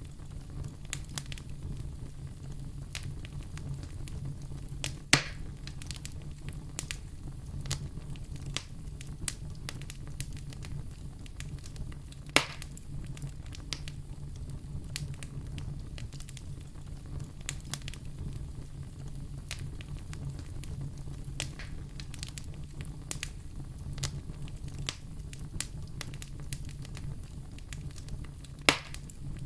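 Wood fire in a fireplace crackling over a steady low rumble, with frequent small snaps and three louder pops.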